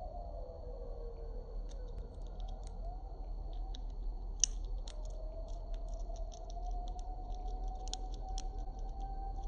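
A bird cracking seed shells with its beak: irregular quick clicks and crunches, one sharper crack about four and a half seconds in. Behind them a steady high whine and a lower tone that slides down, then slowly rises again.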